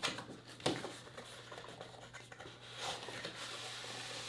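Cardboard packaging being handled: a graphics tablet's inner tray sliding out of its box sleeve, with faint scraping and rubbing and a soft tap about two-thirds of a second in.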